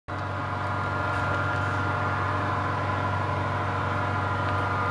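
HO scale model freight train running along the layout track, pulled by an Athearn Genesis EMD SD70ACe model locomotive: a steady, even drone.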